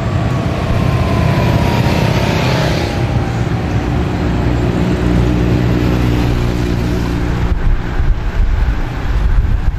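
Escort motorcycles' engines running steadily at low speed as they ride past, with a faint, slowly falling whine over the first three seconds. At about seven and a half seconds this gives way to the rougher, uneven rush of a pack of road-racing bicycles passing close by.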